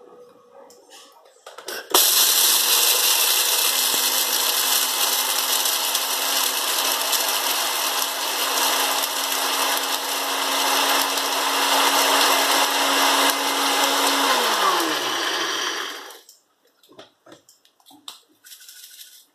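NutriBullet blender motor milling whole peppercorns. It starts abruptly about two seconds in, after a few light clicks, and runs loud and steady with a dense grinding noise. It winds down with a falling hum near the end.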